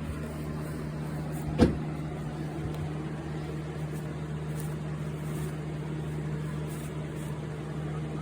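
Electric box fan running with a steady hum, and a single sharp knock about a second and a half in.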